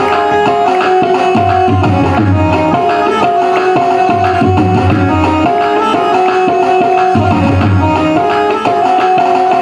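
Instrumental devotional music with no singing: tabla playing a rhythm under long held melody notes.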